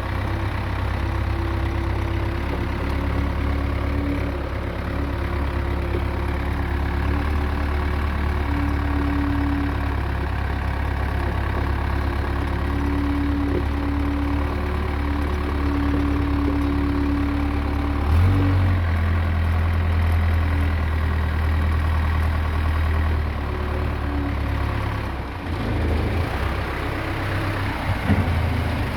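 Case 580D backhoe's diesel engine idling steadily after its radiator repair. The low engine drone grows louder about 18 seconds in.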